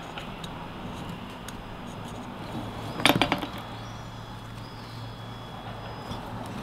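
A thin rod laid down on a wooden worktable, clattering in a quick run of knocks about three seconds in, amid faint small clicks of hands working twine through a hole in a branch.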